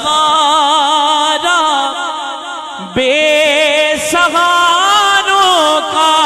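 Male naat reciter singing unaccompanied: long, drawn-out notes with a wavering vibrato. The voice dips briefly and a new phrase starts about three seconds in.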